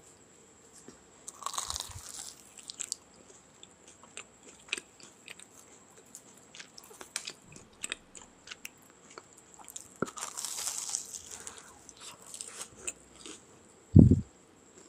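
A person biting into crisp, breadcrumb-coated fried potato balls with a crunch, about a second and a half in and again about ten seconds in, with chewing and small crunchy clicks between the bites. Near the end comes a short, loud, low thump.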